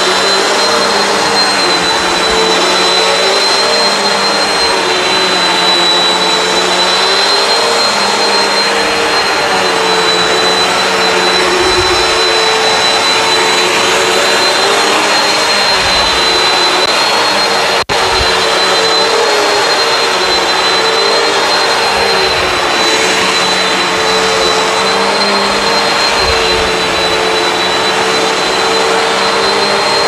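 Bissell CleanView Swivel Pet upright vacuum running steadily on carpet. A high whine over its motor noise wavers slightly in pitch, and the sound cuts out for an instant just past halfway.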